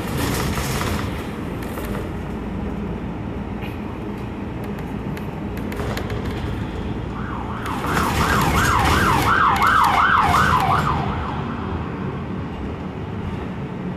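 Transit bus engine and road noise heard from inside the bus, with an emergency vehicle's siren wailing in quick rising-and-falling sweeps, about two or three a second, for roughly four seconds in the middle.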